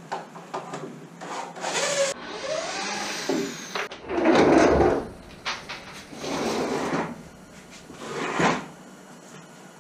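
Wooden strongback frame of lumber being taken apart and moved on a concrete floor: a few clicks, then several separate spells of wood scraping and knocking as the frame is shifted and one side is stood on end.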